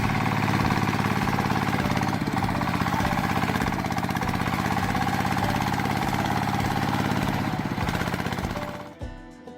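An engine running steadily at an even speed with a fast pulsing beat, fading out near the end.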